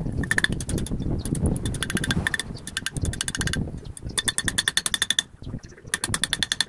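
Rapid light hammer taps on metal, about a dozen a second, in several short bursts with brief pauses, each tap ringing.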